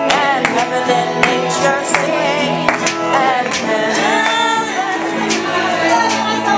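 Electric guitar played live, melody notes bending in pitch, over music with a steady drumbeat.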